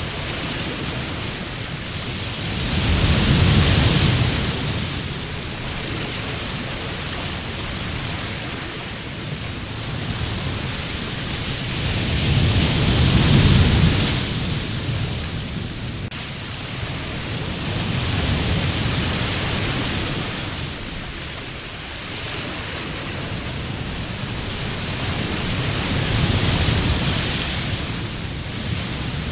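Sea surf breaking on a sandy beach: a steady rushing of water that swells with each breaking wave and falls back, four waves in turn, the second the loudest.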